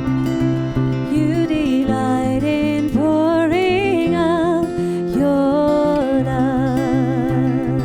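Worship band playing an instrumental passage: acoustic guitar and a steady bass line under a sliding lead melody with vibrato.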